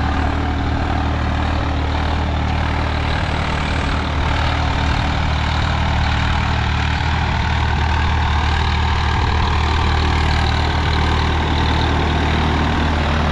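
Swaraj 855 FE tractor's three-cylinder diesel engine running steadily under load as it pulls a 16-disc harrow through the soil, at about 1600 RPM in first gear.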